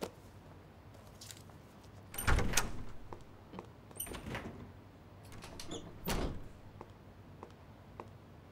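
Wooden door with frosted glass panes being opened and shut, giving clicks and knocks with a slight squeak. The loudest knock comes about two seconds in, with smaller knocks about four and six seconds in.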